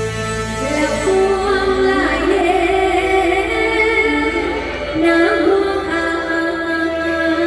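A woman singing a melody with vibrato over a band playing Thai popular music.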